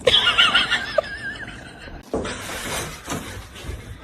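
An animal's call with a quavering, wavering pitch for about a second and a half, then an abrupt change to noisy rustling and knocking.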